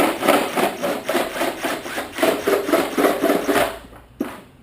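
Power drill with a 1¼-inch bit boring into a plastic boat hull, cutting with a rapid, rhythmic rasping chatter. The drilling stops near the end, followed by a single sharp click.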